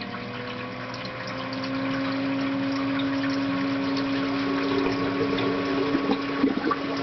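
Ecotech Vectra L1 aquarium return pump being ramped up to full speed: its motor tone rises in pitch and gets louder over the first two seconds, then runs steadily with water rushing through the plumbing.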